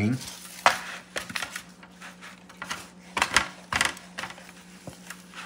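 Hands rubbing marinade into a raw turkey in a disposable aluminium foil roasting pan: irregular clicks and crinkles of the thin foil pan, with soft rubbing of wet skin.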